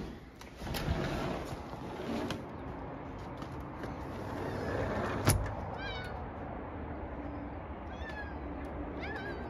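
A few short, high, falling animal calls, starting about six seconds in, over steady outdoor background noise, with one sharp click about five seconds in.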